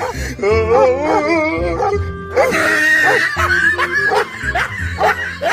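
Dogs barking and yelping over background music with a steady beat.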